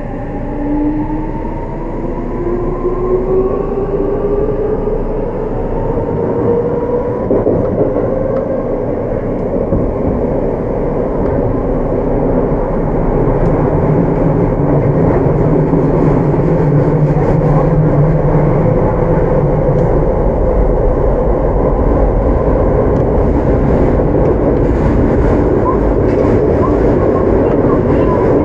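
Seibu 6000-series electric train with a Mitsubishi full-SiC VVVF inverter accelerating: several motor tones climb steadily in pitch through the first ten seconds or so as the train gathers speed. The noise then settles into loud, steady running noise of wheels on rail, with scattered clicks.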